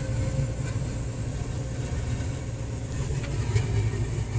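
A combine's diesel engine running steadily at idle, with a few faint clicks near the end.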